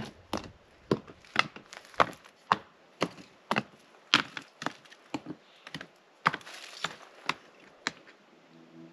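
Loose rocks clacking and knocking against one another as they are stacked onto a stone fire ring, about two sharp knocks a second, stopping near the end.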